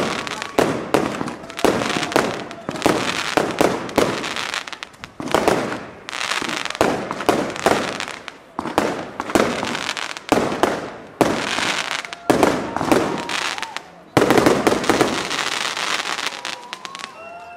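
Aerial fireworks going off in a rapid string of bangs, several a second, with crackling between them.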